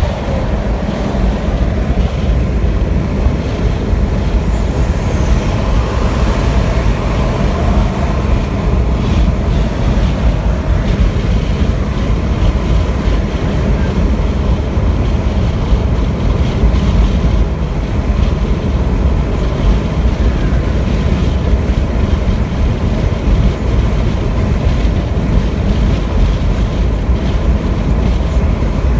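Steady road and wind noise from a vehicle driving at highway speed.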